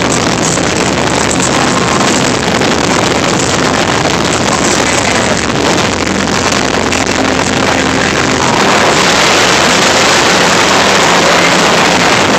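Wind buffeting a handheld phone microphone on a moving Harley-Davidson Heritage Softail, with the motorcycle's V-twin engine running beneath it. The wind rush gets louder about two thirds of the way through.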